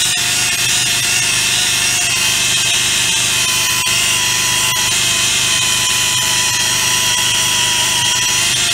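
Air-powered belt sander running at a steady whine, its belt grinding into the aluminum of a Volkswagen waterboxer engine case to clearance it for a longer-stroke crankshaft.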